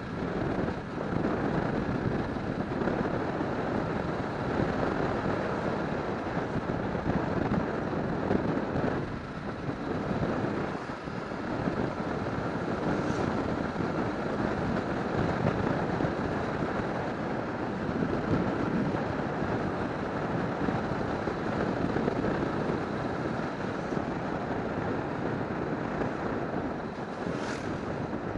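Wind rushing over the microphone of a camera mounted on a moving motorcycle, a steady noise with the bike's engine and road noise under it, easing briefly about nine and eleven seconds in.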